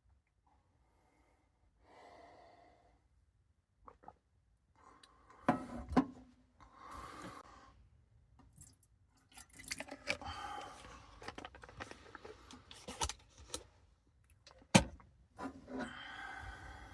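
Intermittent clinks, knocks and rustling of small objects being handled in a cramped space, with a sharp knock about a second before the end.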